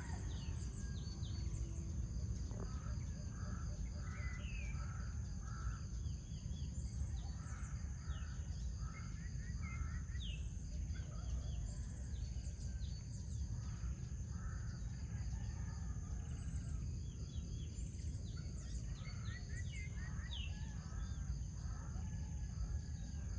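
Birds calling at dawn: many short, scattered chirps, with one bird repeating short notes in runs of several at a time. A steady low rumble and steady high-pitched tones that sound like insects run underneath.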